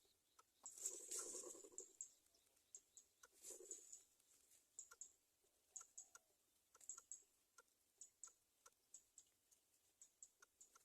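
Faint, irregular clicking with two brief rustles, one about a second in and one about three and a half seconds in.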